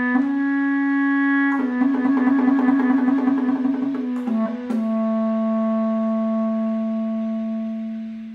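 Solo bass clarinet playing a few held notes. In the middle comes a quick wavering figure alternating between two pitches. It closes on a long final note that fades away near the end: the last note of the piece.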